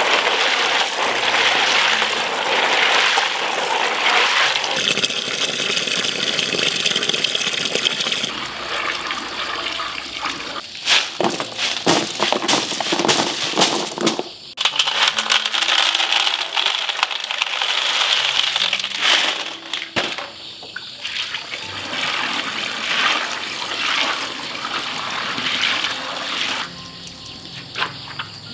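Water running and splashing, with short breaks a couple of times.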